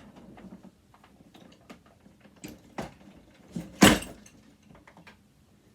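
Scattered small clicks and knocks of tools and metal parts being handled while a sewing machine is taken apart, with one sharp, loud knock nearly four seconds in.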